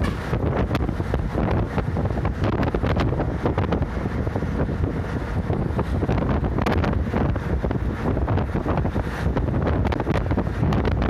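Wind buffeting the microphone over the steady rumble of a moving local route bus, with light rattles.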